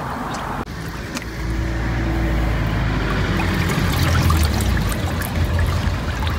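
Water splashing and dripping in a dog's paddling pool as an English bulldog dips his mouth in and lets it run off his jowls. A steady low rumble swells under it from about a second in and is the loudest sound.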